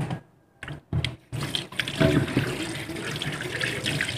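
Kitchen tap running into a sink as a cleaned milkfish is rinsed under it: a steady splashing rush of water that starts about a second in, after a couple of brief cut-outs in the sound.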